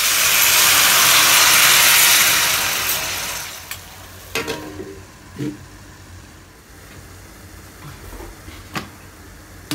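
Water poured into a hot wok of luffa and garlic, hissing and sizzling loudly for about three seconds before dying down. About four seconds in, a glass lid clinks onto the wok, and the covered wok then simmers quietly with a few light knocks.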